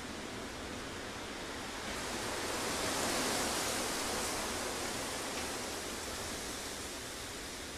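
Wind rushing through the bare crowns of beech trees, a steady rustling that swells into a gust about two seconds in and eases off again.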